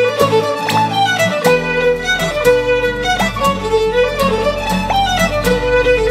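Upbeat background music with a fiddle melody over a steady beat; a bass line comes in about a second and a half in.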